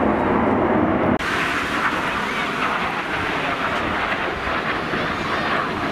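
Jet aircraft flying overhead: a steady rushing engine noise that changes abruptly about a second in to a brighter, higher rush.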